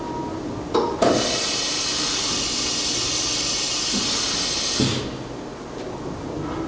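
Compressed air hissing steadily for about four seconds, cutting in sharply with a click about a second in and cutting off just after a thump near the five-second mark.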